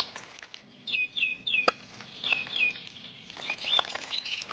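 Small birds chirping: a quick run of short, repeated chirps, with a few sharp clicks or taps in between.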